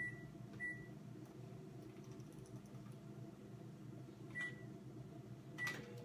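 Over-the-range microwave oven's keypad beeping as the cooking time is entered: two short high beeps in the first second, one more a little past four seconds in and another near the end, over a faint steady low hum.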